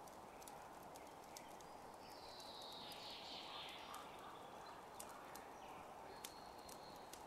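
Faint outdoor ambience: a steady rushing hiss with many scattered sharp ticks.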